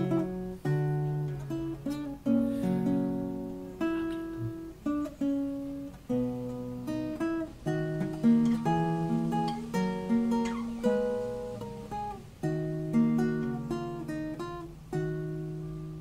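Background music on acoustic guitar: plucked notes and chords, each struck and left to ring. It ends on a chord that rings out and fades near the end.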